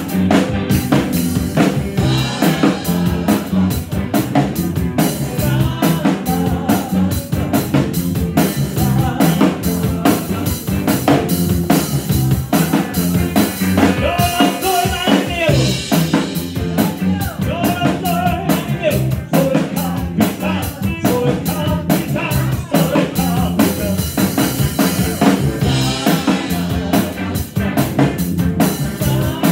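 Live rock band playing: a drum kit keeping a steady driving beat under amplified electric guitar.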